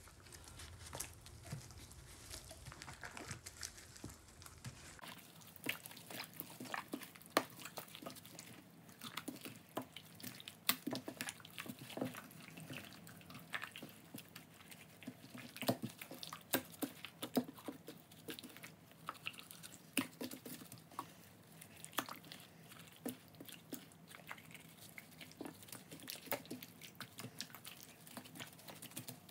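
Faint, irregular wet squelches and smacks of gloved hands rubbing a thick herb marinade into whole raw chickens.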